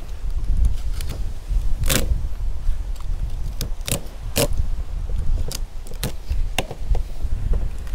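Scattered sharp clicks and cracks of a spiny lobster's shell and spines as it is gripped and worked by hand on a wooden cutting board, over a low steady rumble.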